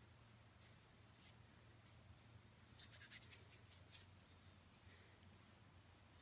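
Near silence over a low steady hum, with a few faint short rustles of paper being handled, clustered about three seconds in.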